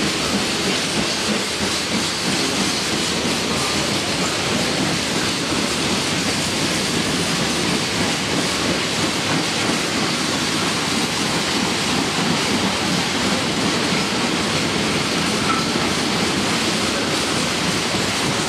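Empty flat freight wagons rolling past at speed: a steady noise of steel wheels running on the rails.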